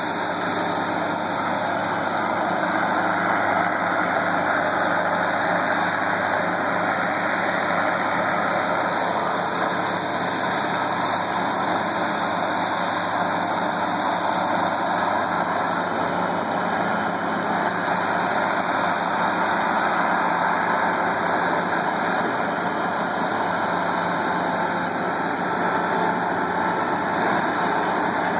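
Ride-on power trowel's engine running steadily as its rotating blades finish a fresh concrete slab.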